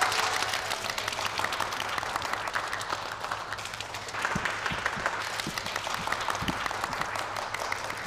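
A group of people applauding: dense, continuous hand clapping, with a few soft low thumps in the middle.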